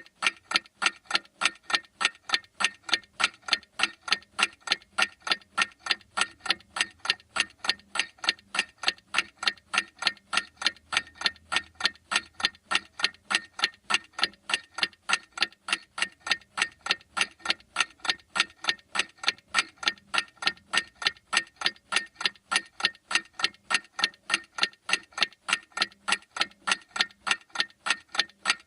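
Mechanical clock ticking in a steady, even rhythm of sharp ticks.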